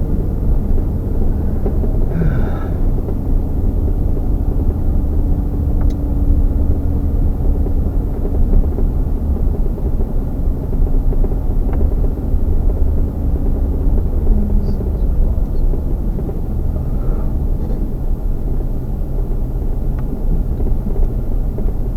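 Car driving slowly, heard from inside the cabin: a steady low rumble of road and engine noise, with a faint engine hum that drops in pitch about two-thirds of the way through.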